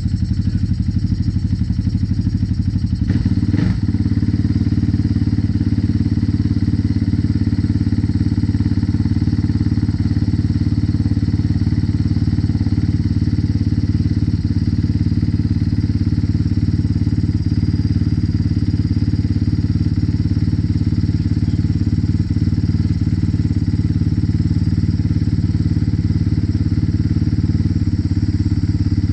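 2018 Suzuki RM-X450Z's single-cylinder four-stroke engine running steadily, test-started after a JD Tuner fuel tuner install. There is a brief knock about three and a half seconds in, after which it settles into an even run.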